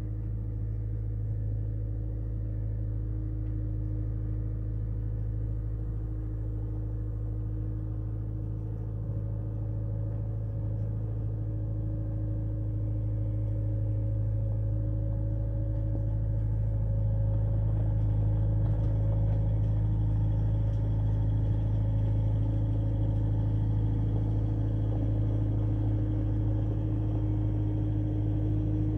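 Steady low mechanical hum with a few unchanging tones, growing a little louder in the second half.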